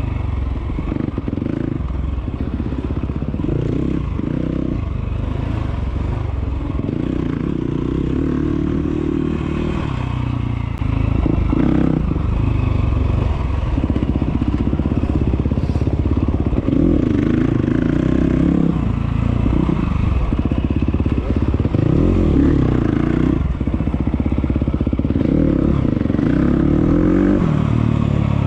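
Enduro motorcycle engine being ridden hard off-road, revving up and falling back again and again through the gears, with the clatter of the bike over rough ground. It gets louder about ten seconds in.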